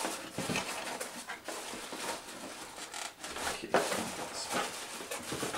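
Plastic wrapping and a cardboard box rustling and crinkling as hands dig in and work the packed item loose, with one sharper knock a little under four seconds in.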